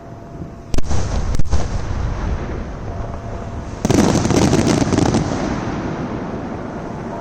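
Fireworks going off: two sharp aerial-shell bangs close together, then about three seconds later a dense flurry of crackling reports that fades into a long, echoing rumble.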